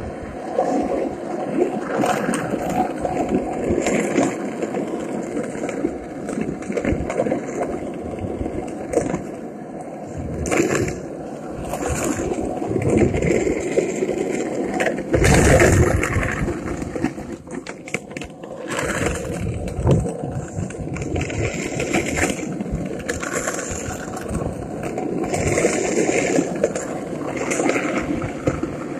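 Skateboard wheels rolling over asphalt, a continuous gritty rumble broken by scattered clacks and knocks, with one heavier knock about halfway through.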